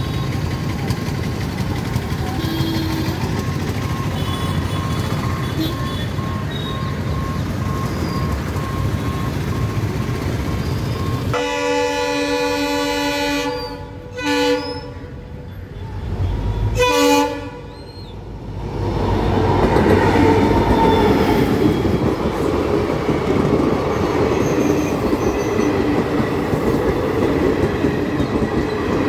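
Train horn blowing at a level crossing: one long blast about eleven seconds in, then two short blasts. A steady rumble runs underneath and grows louder after the horn as the train passes over the crossing.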